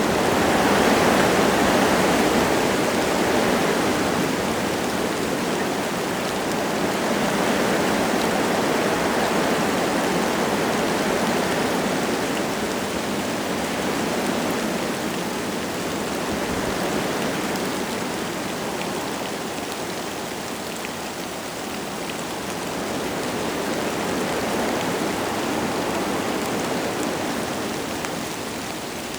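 Wind gusting through forest trees, a steady rushing that swells and eases in slow waves, with light rain falling.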